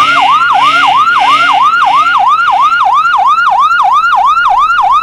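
Electronic siren in a fast yelp, its pitch sweeping up and down about four times a second.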